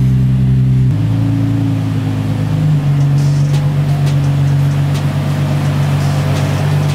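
Nissan 350Z's V6 engine running steadily while the car is driven, with its pitch stepping down about a second in and again near three seconds. A music beat plays over it.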